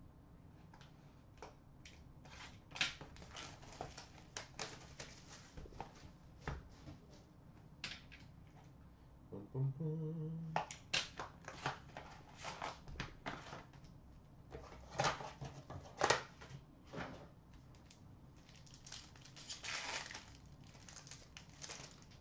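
Trading cards and card packs being handled: cards flicked and shuffled, with a run of soft clicks and papery rustles and a longer crinkle of wrapper near the end.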